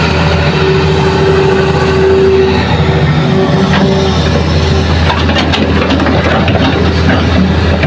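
Hitachi hydraulic crawler excavator's diesel engine running steadily under load as it swings a bucket of soil to a dump truck, with a steady whine for the first few seconds. In the second half, scattered knocks and clatter as soil and rocks are dumped into the truck bed.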